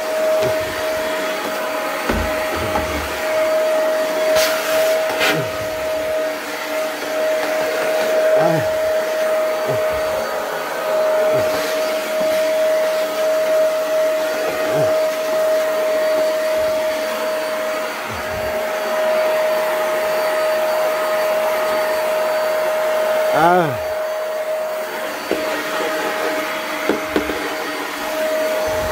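Household vacuum cleaner running steadily with a constant high whine, with a few brief knocks and a short rising squeak near the end.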